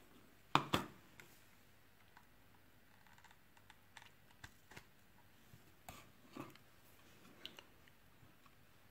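Scattered faint clicks and ticks, the two sharpest close together about half a second in.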